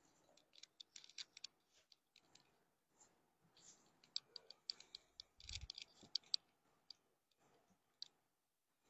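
Faint scattered clicks and light knocks, with a soft thump about five and a half seconds in; otherwise near silence.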